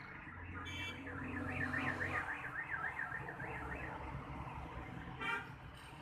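An electronic alarm warbling, its pitch swinging up and down about four times a second for about three seconds, over a low engine hum. A short beep follows near the end.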